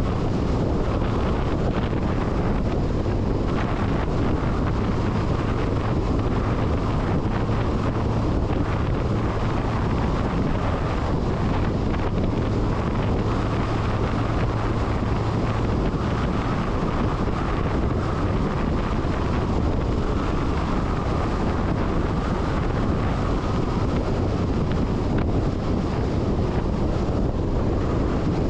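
Steady wind buffeting a microphone mounted on the cab roof of a moving MAN LE 280 B 4x4 truck, over the low, even drone of the truck running along a gravel road.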